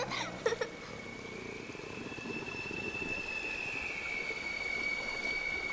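Steady rain falling on the street, with one high held note from an eerie film score. The note rises slightly in pitch through the middle and settles back down near the end. A last trace of the clown's laugh trails off at the very start.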